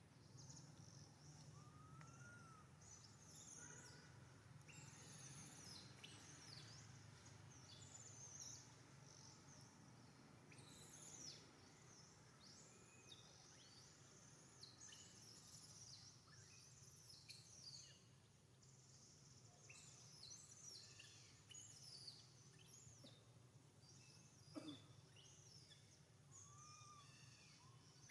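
Faint outdoor ambience of small birds chirping, with many short high chirps that sweep downward, scattered throughout over a low steady hum. A single brief knock comes near the end.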